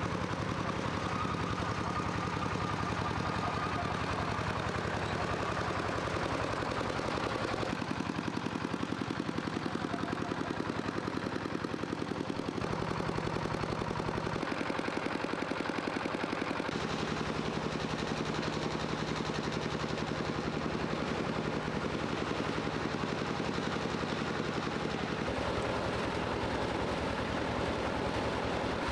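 Small engine running steadily with rapid, even pulses, its pitch shifting up and down several times.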